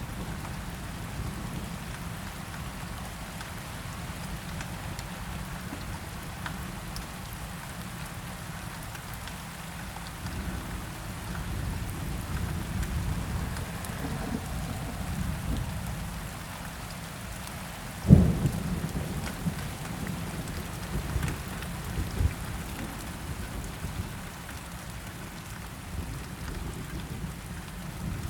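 Steady rain falling, with thunder: a low rolling rumble swells about ten seconds in, then a sharp, loud thunderclap about eighteen seconds in, followed by a few smaller rumbling cracks.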